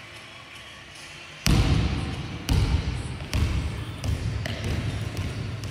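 A ball striking a sports-hall floor hard about a second and a half in, then bouncing several more times, each thud ringing on in the hall.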